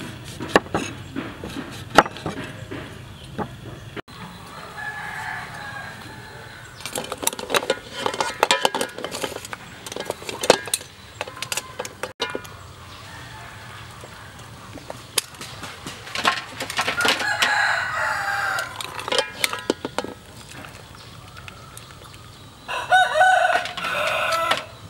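A rooster crowing several times, the last and loudest near the end. Sharp knife chops on a wooden cutting board in the first few seconds, and scattered clicks and clatters in between.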